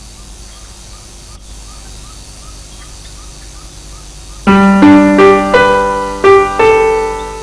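A low, steady background for about four seconds, then a slow keyboard melody comes in: about six piano-like notes struck one after another, each ringing and fading away.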